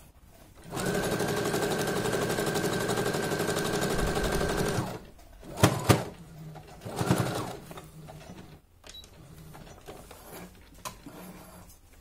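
Brother FS101 sewing machine stitching at a steady speed for about four seconds, with a constant high motor whine, then stopping. Two sharp clicks come about a second later, followed by a softer rustling knock and a few faint clicks.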